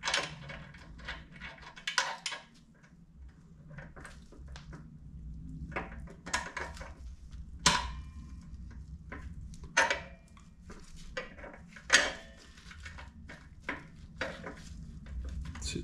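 Small metal parts clicking and clinking as a zinc-plated bolt and spacer bush are worked into the moped's exhaust bracket by hand, with sharper clinks about eight, ten and twelve seconds in. A faint steady low hum runs underneath.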